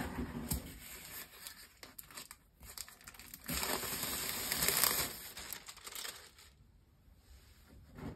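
Clear plastic wrapping crinkling and rustling as a cardboard shoebox is handled and slid out of it. Scattered light taps and rustles come first, then a denser stretch of crinkling near the middle.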